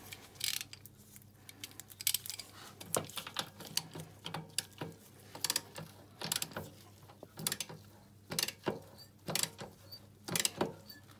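Socket ratchet clicking in short, irregular runs as it works the 17 mm nut on the tie-rod end at an ATV's front steering knuckle, tightening it.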